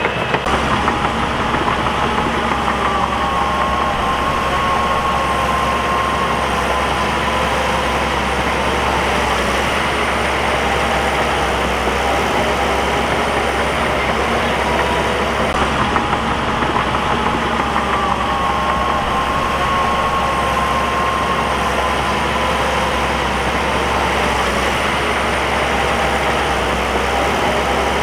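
Crawler bulldozer's diesel engine running steadily, with a whine that sinks slightly in pitch twice.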